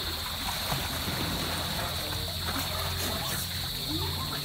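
Water splashing and sloshing as a small child swims across a pool, kicking and paddling. A steady high insect drone runs underneath.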